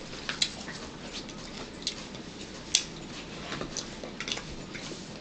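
Quiet eating sounds at a table: scattered small clicks and smacks, the sharpest nearly three seconds in.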